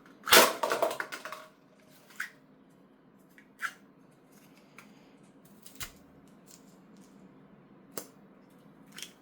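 3D-printed toy spud gun firing: one sharp plastic snap followed by a quick rattle of clicks for about a second. A few single light clicks follow, several seconds apart.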